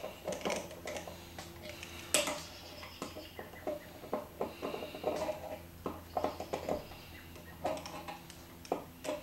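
A screwdriver tightens the screws on a brass Kohler Niedecken shower valve body, making a run of small, irregular metallic clicks and scrapes. One sharper click comes about two seconds in.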